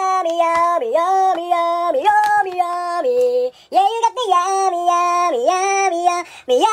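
Background song: a high-pitched voice singing a melody in held notes that step up and down, with a brief break about three and a half seconds in.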